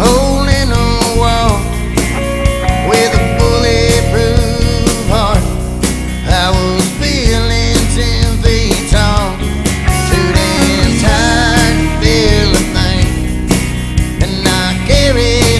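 Rock music with a steady drum beat and a lead melody that bends in pitch.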